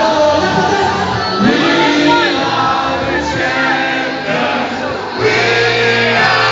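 Music with singing over a steady bass line; the bass shifts about five seconds in.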